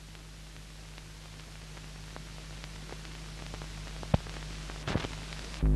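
Steady hiss and a low hum of an old film soundtrack, with scattered faint clicks, a sharp click about four seconds in and a louder thump near the end, where the hum stops abruptly.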